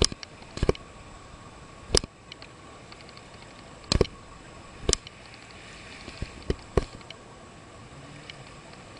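About seven sharp clicks and knocks at irregular intervals, over a steady hiss with a faint steady whine.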